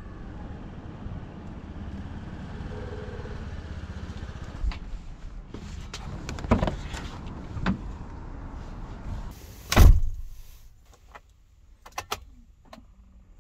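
Steady outdoor rumble for the first few seconds, then a few knocks, and about ten seconds in a camper van door is shut hard, the loudest sound. Near the end come a few light clicks as the key is handled at the ignition.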